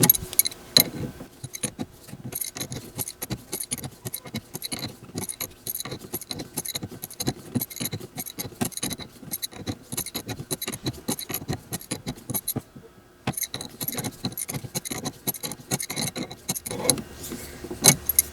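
Ratcheting wrench clicking rapidly in short back-and-forth strokes as it runs a nylock nut down a threaded steel stud; the nut's nylon insert resists turning, so it has to be wrenched all the way down. The clicking pauses briefly about thirteen seconds in.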